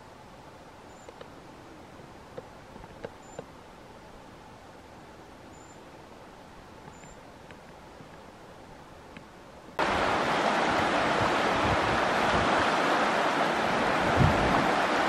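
A quiet outdoor background with a few faint ticks and four short, thin high chirps. About ten seconds in, it cuts suddenly to the loud, steady rushing of a fast-flowing river.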